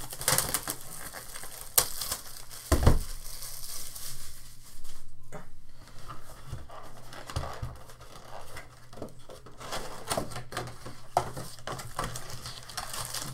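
Plastic wrapping crinkling and tearing as a cardboard trading-card box is unwrapped and opened and the foil packs inside are handled, in irregular rustles and taps. One heavier thump about three seconds in.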